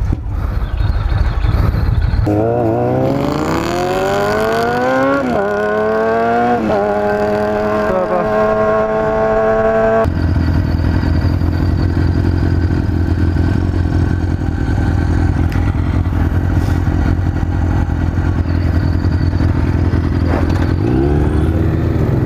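Motorcycle engine accelerating through the gears: the pitch climbs, drops at two upshifts and holds. It then runs at a steady cruise for about ten seconds and starts revving up again near the end.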